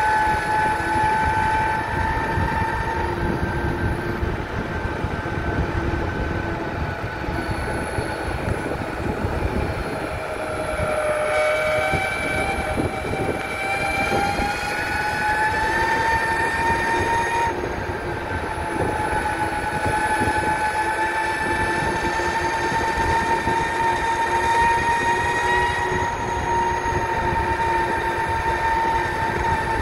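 Electric mountainboard motors whining steadily while riding, over a low rumbling hiss. The whine's pitch dips about ten seconds in, climbs back over the next several seconds, then drifts slowly up and down as the speed changes.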